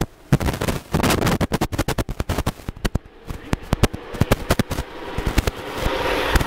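A dense run of sharp, irregular crackling pops. Under them, the faint steady whine of an electric pocket-mod moped's motor grows louder over the last few seconds as it comes closer.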